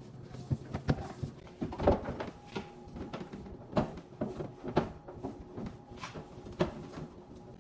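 Irregular light knocks and clatters of refrigerator shelves and drawers being handled and set in place.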